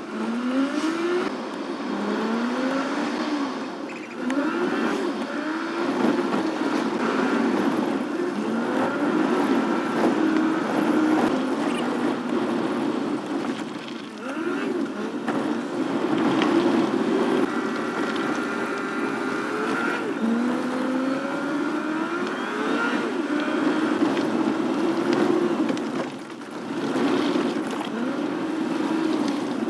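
Engines revving, their pitch repeatedly rising and falling over a second or so at a time, over a steady running drone.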